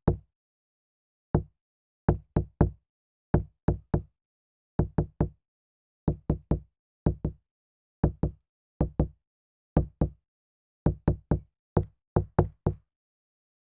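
Knocking on a car window: short, sharp knocks in quick groups of two or three, separated by pauses of about half a second to a second.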